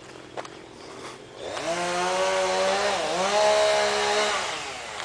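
Chainsaw revving up about a second and a half in, its pitch dipping briefly in the middle, then winding down near the end.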